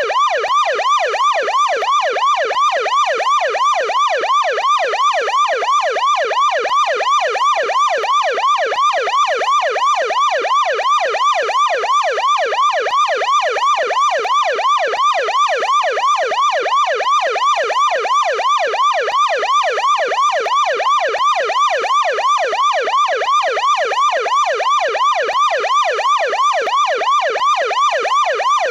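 American police car electronic siren in a deep-toned yelp: the pitch sweeps up and down rapidly, about three times a second, without a break.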